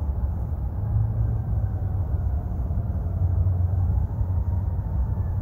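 Steady low rumble of outdoor background noise with a faint wavering tone above it.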